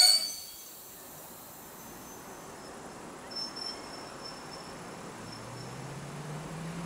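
Faint chirping of crickets over a quiet background. From about five seconds in, a low hum rising slowly in pitch comes in: an EN57 electric multiple unit approaching.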